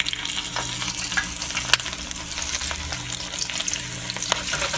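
Breaded fish frying in hot oil in a frying pan: steady sizzling with sharp spattering crackles and pops.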